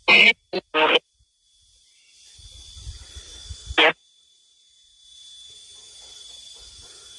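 Spirit box sweeping through radio stations: three choppy fragments of broadcast voice near the start and one more about four seconds in, each cut off abruptly, then a faint steady static hiss with a thin high whine.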